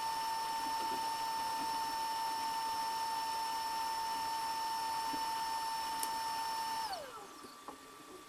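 Hot air rework station's blower running with a steady high whine, then spinning down with a falling pitch about seven seconds in, after soldering a PMU chip onto a laptop logic board.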